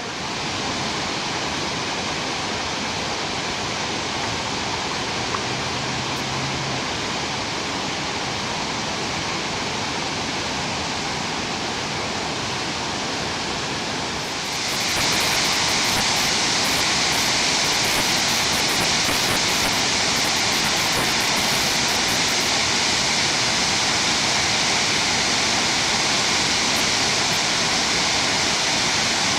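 Steady rushing of a waterfall, which gets louder and brighter about halfway through.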